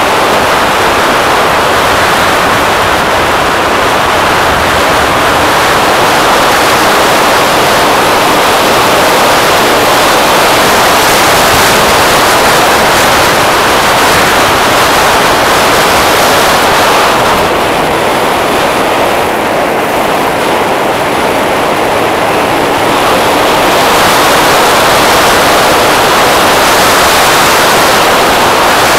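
Steady rush of wind over the microphone of a camera on a moving scooter, with the scooter's engine and tyre noise blended underneath. The rush eases a little for a few seconds past the middle, then picks up again.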